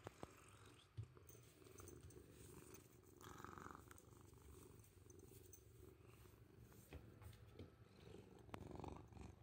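Orange tabby cat purring softly and steadily while being stroked, a contented, affection-seeking purr. A couple of light knocks in the first second.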